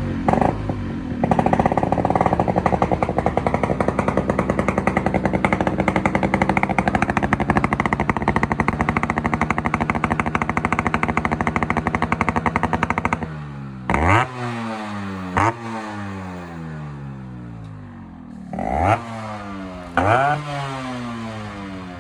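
Yamaha RX-series two-stroke single-cylinder motorcycle engine with a newly fitted inbuilt silencer, running at a fast, steady idle while being tuned. Past the middle it is revved four times in short throttle blips, each rising sharply and then falling back.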